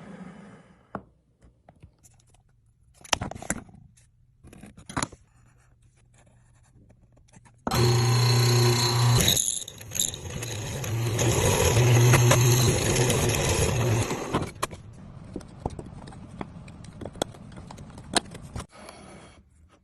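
Light knocks and scrapes, then an electric power tool runs for about seven seconds with a steady hum and stops abruptly, followed by more light clicks.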